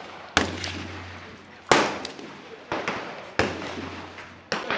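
Rifle shots: about five sharp reports of differing loudness, the loudest nearly two seconds in, each trailing off in a short echo.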